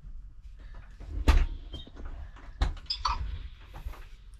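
A few knocks and low thumps, two louder ones a little over a second apart near the middle, over a low rumble.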